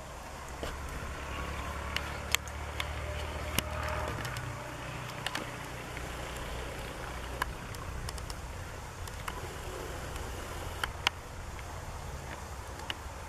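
Wind buffeting the camera's microphone through a wind muffler: a steady low rumble, with a few scattered sharp clicks.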